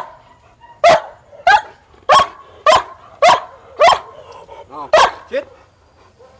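Large male German Shepherd barking hard on the leash, about eight loud, sharp barks at a fairly even pace of under a second apart, with a short gap before the last one or two. These are defensive barks at a helper agitating the dog in protection training.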